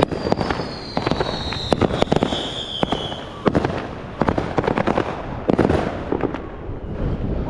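Fireworks going off in rapid, irregular bangs and crackles. Over the first three seconds a high, shrill whistle slides slowly down in pitch.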